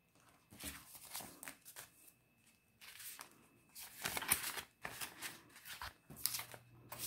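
Paper banknotes and clear plastic zippered cash-envelope pouches rustling as they are handled and shifted, in short irregular bursts, the busiest about halfway through.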